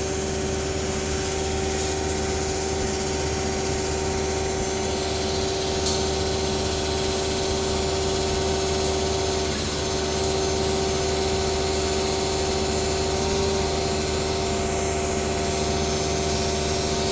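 Vacuum tanker's engine-driven vacuum pump running steadily at raised revs, sucking water out of a cesspit through the suction hose.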